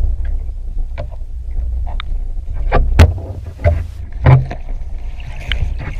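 Muffled underwater sound picked up by a camera on a pole moving through the water: a steady low rumble with several sharp clicks and knocks.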